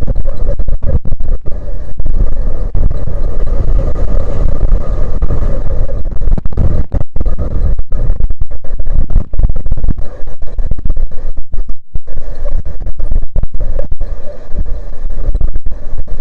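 Strong wind buffeting the microphone with a loud, choppy rumble that overloads the recording and keeps cutting in and out.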